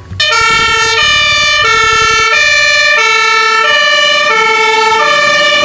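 Fire engine's two-tone siren sounding, alternating between a lower and a higher note, each held about two-thirds of a second.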